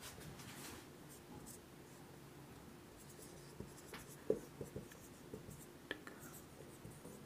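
Whiteboard marker writing on a whiteboard, faint scratchy strokes followed by several light taps of the tip against the board between about four and six seconds in.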